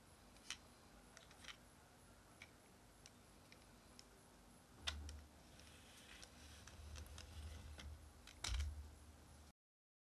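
Faint scattered clicks and light knocks of a small toy car being handled and moved on a wooden tabletop, with a low rumble in the second half and the loudest knock near the end.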